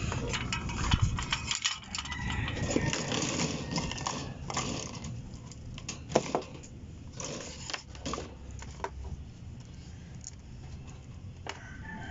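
Small metal parts and hand tools clicking and clinking on a workbench as they are picked up and handled, in irregular taps and rattles.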